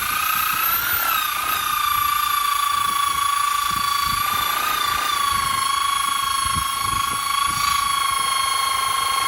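Battery drill spinning a brush inside a corroded propeller hub bore. It runs at a steady high whine, its pitch sagging briefly about a second in and again near five seconds.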